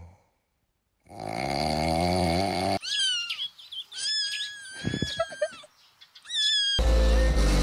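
A kitten mewing in high-pitched cries: a few short calls that fall in pitch, then one long call, then another short one. Before the cries there is a brief wavering pitched sound, and near the end a loud low steady sound starts.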